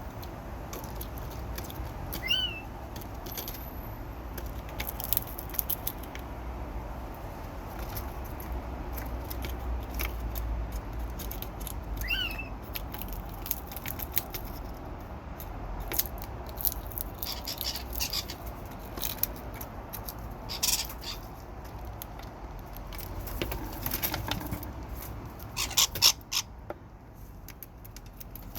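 Birds calling over a steady low background rumble: two short, rising squeaky calls about ten seconds apart, then a run of sharp clicks and chatter, loudest near the end.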